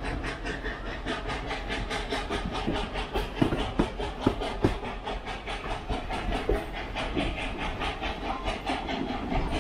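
Reading & Northern 425, a 4-6-2 steam locomotive, chuffing steadily at about five exhaust beats a second as it pulls the train along, heard from aboard. Wheels clack over rail joints, with the sharpest clacks a little past the middle.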